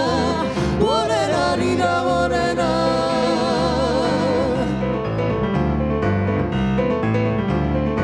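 A man and a woman singing live over digital piano accompaniment, ending on a long held note with a wide vibrato. About five seconds in the voices stop and the piano plays on alone.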